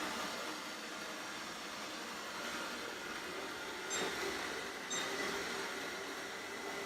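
Robot vacuum running with a steady whirring hum, with two short clicks about four and five seconds in.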